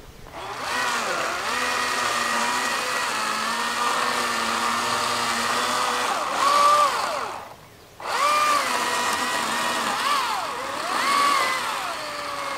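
Battery electric chainsaw running with a steady whine, its pitch dipping and recovering again and again as it cuts through brush. It stops for about half a second a little past the middle, then starts again.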